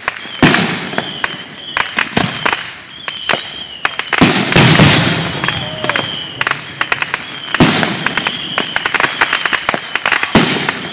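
Fireworks going off in a rapid series of sharp bangs and crackles. Heavier booms come about half a second in, around four to five seconds in, and near eight seconds in.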